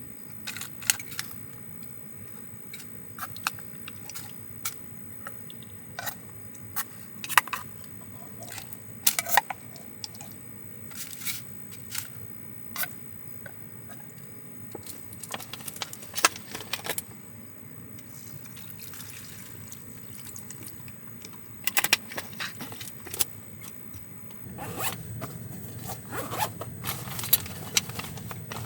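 Irregular clicks and short scrapes, like small hard objects being handled, over a low steady hum that grows louder near the end.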